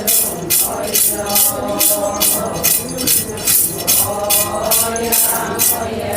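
Voices singing a traditional Adi Solung festival song, with a rattling percussion beat about three times a second; the rattle stops near the end.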